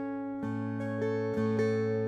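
McSpadden six-string baritone mountain dulcimer played fingerstyle: a melody of plucked notes changing every half second or so over steady ringing drone strings.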